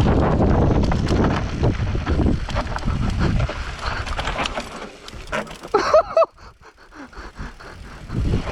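Mountain bike descending a trail: wind buffeting the helmet camera's microphone and the bike rattling over rough ground, easing off about halfway. After a brief wavering pitched sound, the bike coasts more slowly and the rear hub's freewheel ticks rapidly.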